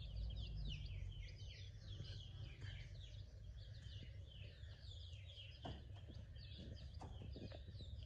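Chicks peeping continuously: a busy stream of short, falling chirps, over a low rumble, with a few soft knocks near the end.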